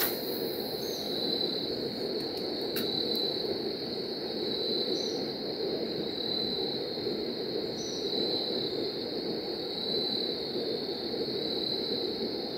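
Evening riverside ambience: a steady high-pitched chirring that swells about every one and a half seconds, over a steady low rushing hiss.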